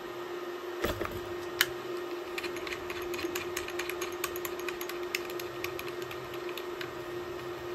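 Small metallic clicks, then a run of quick light ticks, as a PL259 coax plug and test leads are handled at the controller box's SO239 socket. A steady hum runs underneath.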